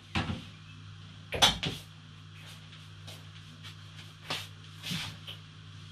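Microwave oven door pushed shut with a click, followed by a few more knocks and clicks, the loudest about a second and a half in. A steady low hum runs underneath.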